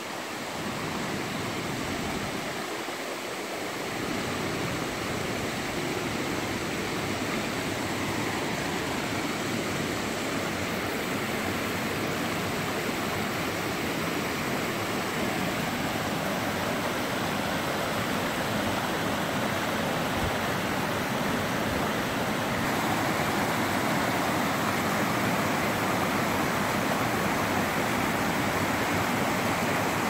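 Water of the Selkefall, a small waterfall, rushing over rock steps and rapids: a steady rush that steps up in loudness about two-thirds of the way through.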